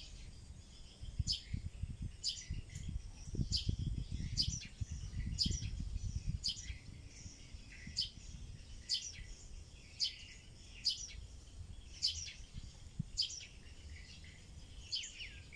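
A bird chirping over and over: short, high chirps about two a second. A low rumble rises under it for a few seconds in the middle.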